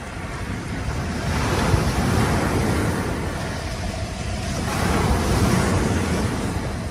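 Surf washing onto a sandy shore, swelling twice, with wind buffeting the microphone.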